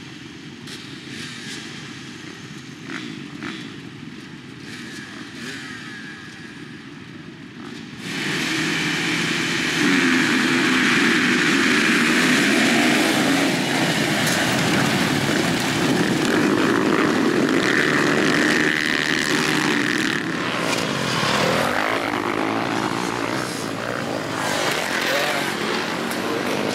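A field of motocross bikes running at the start gate, then about eight seconds in the sound jumps sharply as the pack launches off the start at full throttle. Many engines then race away together, loud and wavering in pitch.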